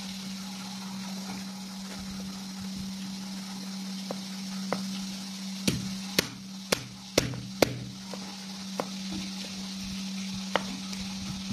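Cleaver chopping on a wooden chopping board: scattered sharp knocks, with a quick run of about six strikes in two seconds around the middle. A steady low hum runs underneath.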